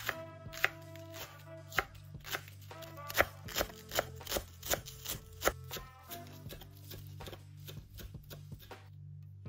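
Knife chopping food on a cutting board: a run of sharp knocks that quicken in the middle and stop about six seconds in, over soft background music.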